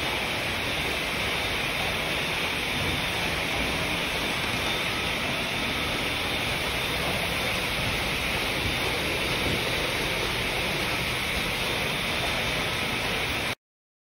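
Steady, even hissing noise with no distinct knocks or tones, cutting off abruptly about half a second before the end.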